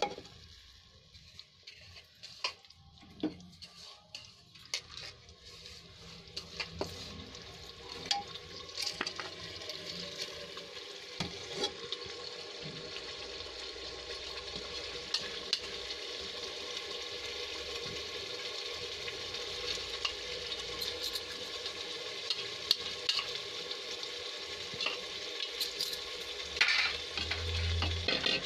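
Metal ladle stirring washed red lentils (masoor dal) into hot fried masala in an aluminium pressure cooker: scattered clinks and scrapes of the ladle against the pot over a steady sizzle that builds up after the first few seconds.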